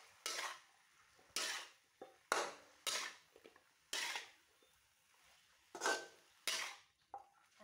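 A metal spatula scraping and clanking against a large metal wok as leafy greens are stir-fried, about seven strokes at irregular intervals of roughly a second.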